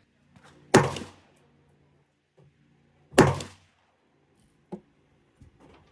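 AR-15 rifle firing two shots about two and a half seconds apart, each sharp report trailing off in a short echo, followed by a much fainter click.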